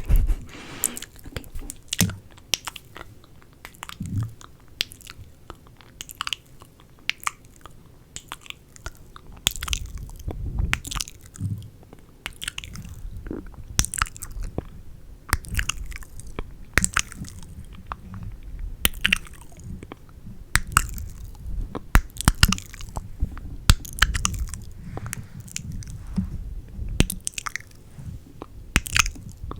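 Close-miked ASMR mouth sounds: a constant, irregular run of wet mouth clicks and smacks, with a low rumble underneath from about a third of the way in.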